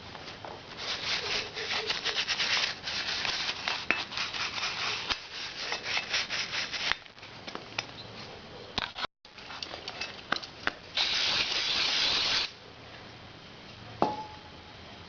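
Rubbing and scraping on metal engine parts, coming in bursts with scattered clicks. A short metallic clink rings briefly near the end.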